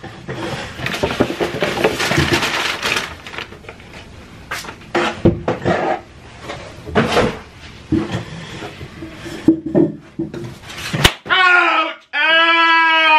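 Paper takeout bags and wrappers rustling and knocking as they are handled, with short bits of voice. Near the end, a sharp click and a sudden drop to quiet, then a drawn-out voiced whine lasting about a second.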